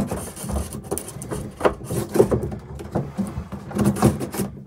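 Electrical cable being pulled up through a hole in the floor, making irregular scraping, rubbing and knocking sounds.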